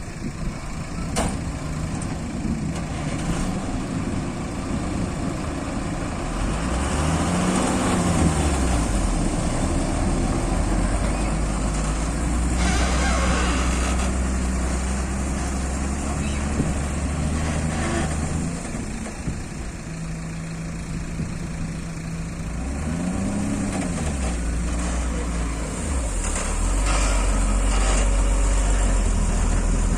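JCB 3DX backhoe loader's diesel engine working steadily, revving up and dropping back twice as the machine takes load, with heavy trucks running nearby. Two short spells of rushing noise come about halfway through and again near the end.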